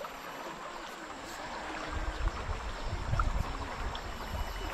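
A swollen, fast-flowing river rushes steadily past the bank, and a low rumble joins it from about two seconds in.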